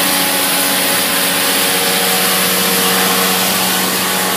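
Steady din of plastics-factory machinery, including small grinding mills for plastic scrap: a constant hum with several steady tones over a loud even hiss, unchanging throughout.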